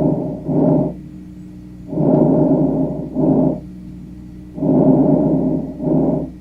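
Chest breath sounds as heard through a stethoscope. About every two and a half seconds a breathing cycle repeats: a longer rushing sound, then after a brief pause a shorter one. A faint steady hum sits in the pauses.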